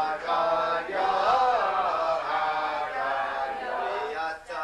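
Several voices chanting a Passover seder song together from the Haggadah, in long held notes.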